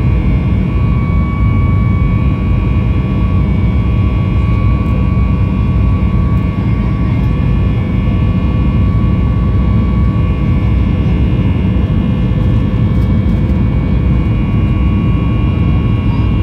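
Cabin noise inside a Boeing 737 MAX 8-200 in its climb after takeoff: the steady rumble of its CFM LEAP-1B turbofan engines, with steady whining tones from the fans above it.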